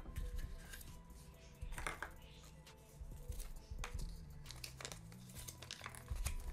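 Crinkling of a small folded paper leaflet being unfolded, with a few sharp clicks and rustles from handling a plastic Kinder Surprise toy capsule, over soft background music.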